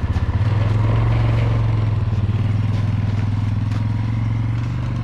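ATV engine running under load, its low pulsing note rising to a steadier, higher drone about half a second in, as the quad works to climb out of hard-packed frozen snow ruts.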